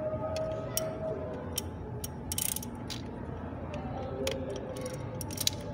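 Ratchet wrench with a 13 mm socket clicking as it is worked back and forth in short strokes to loosen the knock sensor's bolt. The clicks come singly, about every half second to a second, with a quick run of them about two and a half seconds in.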